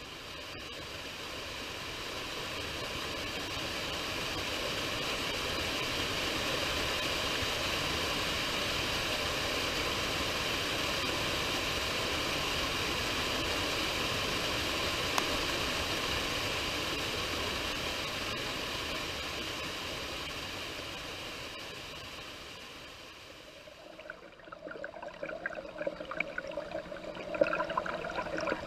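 Steady rushing of a waterfall that fades in, holds, and fades away about three-quarters of the way through. Then an uneven, splashier sound of falling water takes over.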